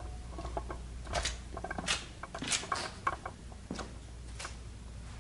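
Scattered light clicks, taps and rustles, irregular and about one or two a second, over a faint steady low hum: handling noise of a hand-held camera being moved around.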